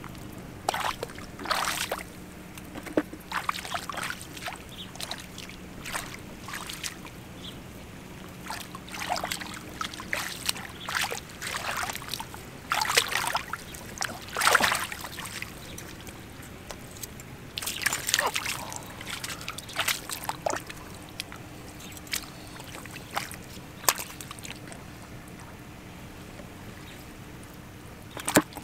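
Hands sloshing and splashing in shallow muddy water, in irregular bursts of splashes and squelches, over a faint steady low hum.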